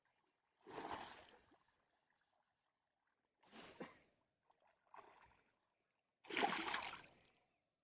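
Four splashes in water, each a sudden rush that fades within about a second; the last, near the end, is the loudest.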